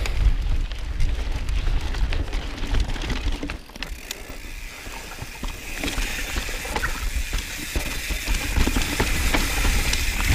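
Mountain bike descending a rocky dirt singletrack: tyres on dirt and rock, the bike rattling with many sharp clicks and knocks, over a low rumble of wind on the microphone. It gets quieter about four seconds in.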